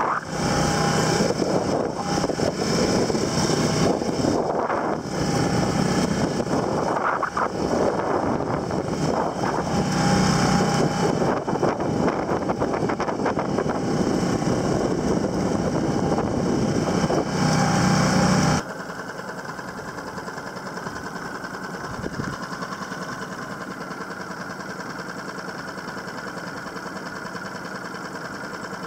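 Small boat engine running, mixed with heavy wind and water noise. About two-thirds of the way through it cuts abruptly to a quieter, steadier engine hum.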